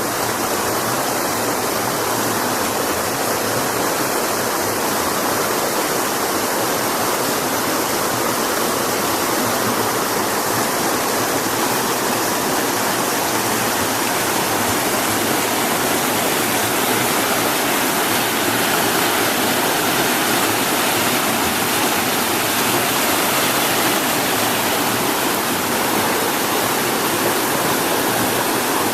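A stream's water rushing steadily and loudly, with no let-up.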